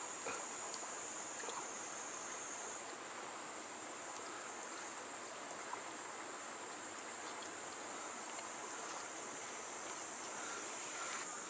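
Steady rush of water running into a rock pool in a gorge, with a continuous high insect chorus over it.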